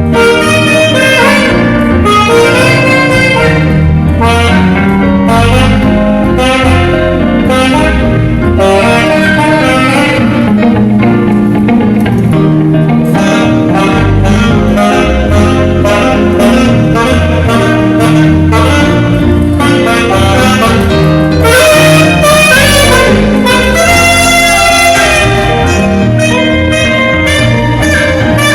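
Saxophone playing a jazz-style melody over a loud backing of bass and drums.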